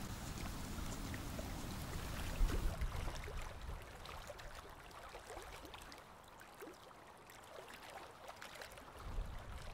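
Small waves lapping at the shore of a calm bay, a steady scatter of light splashes and trickles. A low rumble underlies the first three seconds, then the sound drops quieter.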